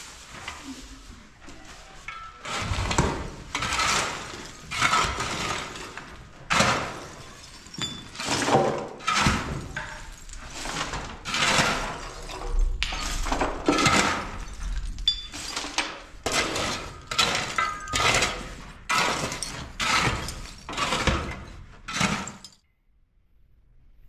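Repeated crunching, clattering strokes of manual construction work, about one a second and fairly even, stopping abruptly near the end.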